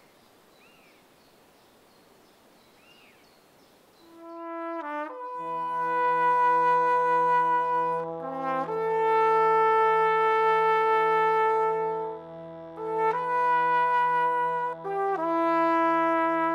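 A few faint bird chirps over a quiet background, then slow brass music with long held chords comes in about four seconds in, its chords changing every few seconds.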